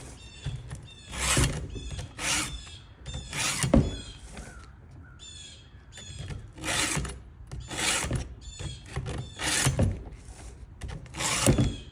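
Stihl 2-in-1 chainsaw file rasping across the chain's cutters in short strokes, about seven, mostly grouped with gaps between them.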